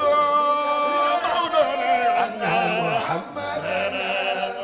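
A man chanting a devotional poem in a drawn-out melody, holding a long note at the start and then winding through ornamented turns, with a brief breath about three seconds in.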